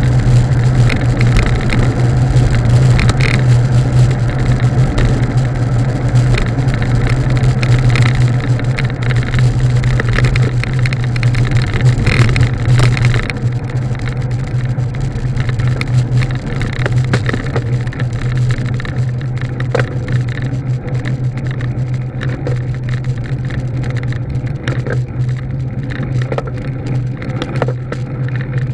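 A vehicle travelling steadily along a road: a constant low hum under rushing road and wind noise, with scattered small knocks. It eases a little about halfway through.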